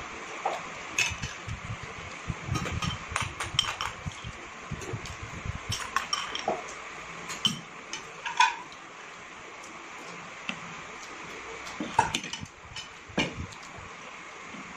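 Metal forks clinking and scraping against ceramic plates in short, irregular clicks, with soft chewing sounds in between.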